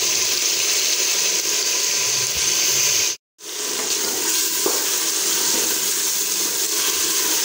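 Spice masala and boiled black chickpeas sizzling steadily in ghee in a pot as they are fried and stirred, the bhuna stage of cooking before water goes in. The sizzle cuts out for a moment a little after three seconds in, then carries on.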